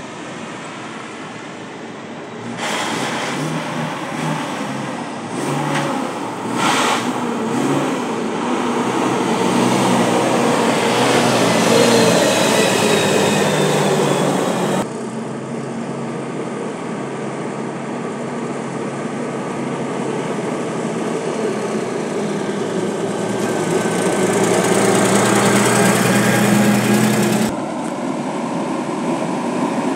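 Heavy diesel dump truck engines running as the trucks drive up and pass, swelling loudest about twelve seconds in and again near the end, with a faint rising whine as one speeds up. The sound changes abruptly three times, as at cuts between takes.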